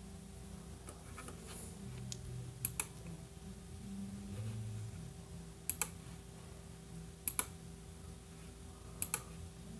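Computer mouse button clicking as letters are picked one by one on an on-screen keyboard: four sharp press-and-release double clicks a second or two apart, with a few fainter ticks, over a faint steady hum.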